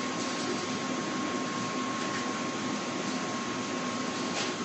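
Steady room-noise hiss with a faint constant high-pitched tone running through it, and no distinct events.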